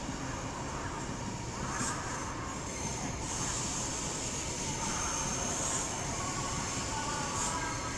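Chinese CRH high-speed electric train running past on the tracks: a steady rumble and hiss with a thin high whine above it.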